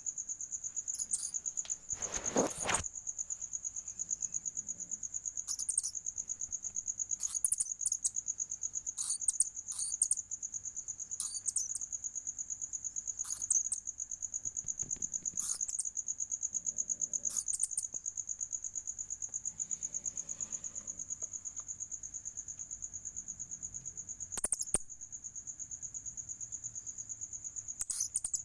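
Crickets chirping in a steady, fast-pulsing high trill. Scattered short clicks are mixed in, with a brief louder rustling thump about two seconds in.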